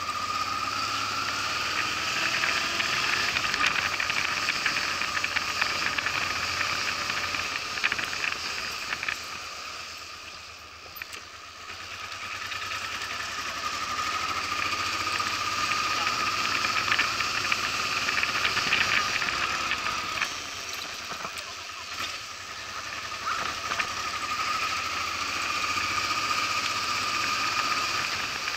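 Honda Transalp's V-twin engine running as the motorcycle rides slowly through town. The engine note eases off twice, about ten and twenty-one seconds in, and picks up again each time.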